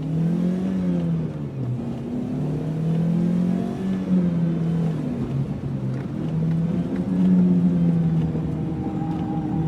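Motor vehicle engines running, their pitch rising and falling slowly as they speed up and slow down.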